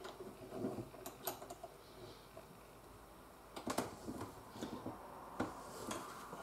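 Scattered light clicks and knocks at irregular intervals as a one-handed quick-release bar clamp is squeezed tight on a workpiece held in a bench vise.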